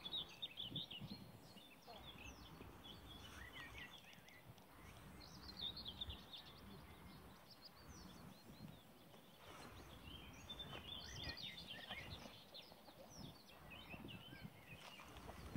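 Faint outdoor ambience: small birds singing and chirping in bursts, over a low rumble of wind on the microphone.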